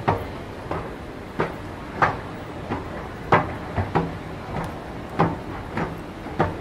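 Footsteps of a person walking at a steady pace, about three sharp steps every two seconds, over steady background noise.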